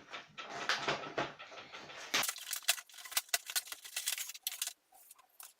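Packaging of a microphone being opened and handled: rustling with many sharp clicks and taps, then a run of separate clicks that thins out near the end.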